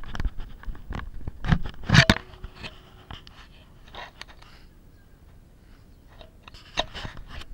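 Handling noise on an action camera's microphone as the camera is turned and gripped by hand: irregular clicks, knocks and scrapes, loudest about two seconds in and again near the end.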